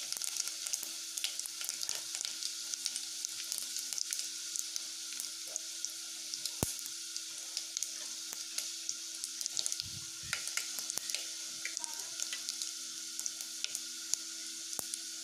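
Tempering (phodni) of garlic, curry leaves, mustard seeds, cumin and asafoetida sizzling in hot oil in a pot: a steady hiss broken by many irregular small pops and crackles.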